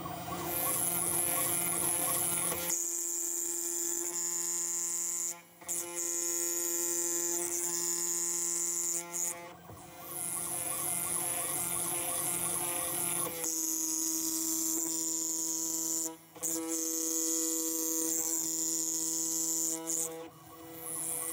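CNC router spindle running with a coated end mill cutting a pocket in plastic at reduced spindle speed: a steady high whine over a steady hum. The whine's pitch shifts a little and it breaks off briefly four times.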